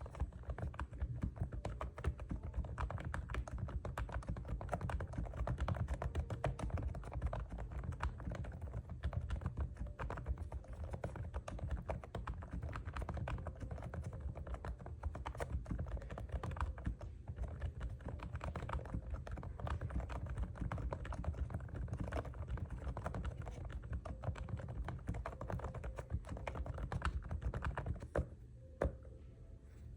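Continuous fast typing on an AULA S102 wired membrane keyboard: a dense run of soft, muffled keystrokes that stops shortly before the end.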